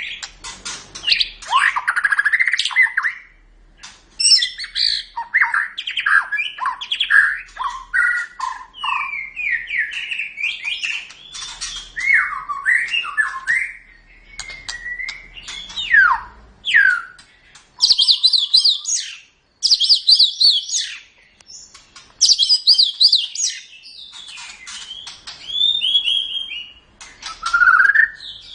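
White-rumped shama (murai batu) singing a long, varied song of whistled phrases and chattering notes, broken by short pauses. About two-thirds of the way through comes a run of fast, high, repeated trills.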